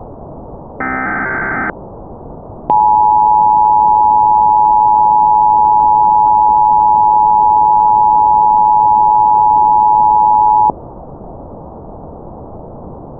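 Emergency Alert System broadcast over steady static hiss: a short burst of SAME header data tones about a second in, then the two-tone EAS attention signal (853 and 960 Hz together) sounding loud and steady for about eight seconds before cutting off sharply, leaving only the hiss.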